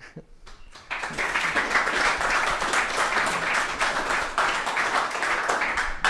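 Audience applauding, the clapping starting about a second in and going on steadily.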